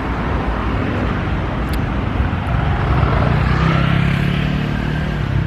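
Street traffic: a motor vehicle's engine swells as it passes close by, over a steady noise of road traffic.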